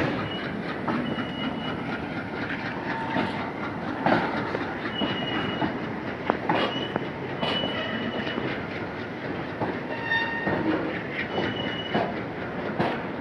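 Freight train of flat wagons loaded with long rails rolling slowly past, with steady rumbling and rattling, irregular clicks of wheels over the track, and several brief high-pitched wheel squeals.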